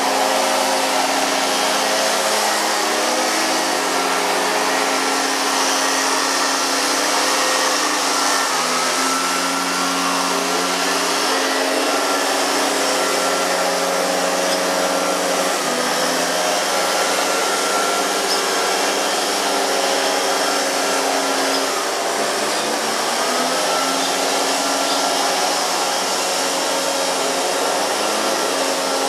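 Loud, steady machine drone: a motor running continuously, its hum drifting slightly in pitch over a constant hiss.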